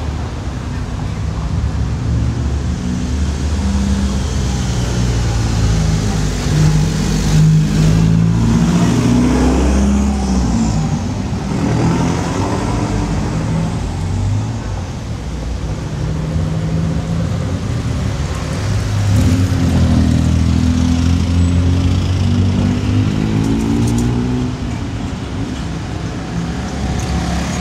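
Road traffic: motor vehicle engines running and passing close by. Twice the engine note swells and glides up and down, about a third of the way in and again past two-thirds.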